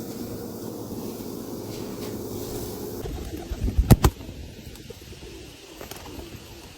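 Low bird calls, with two sharp, loud knocks about four seconds in.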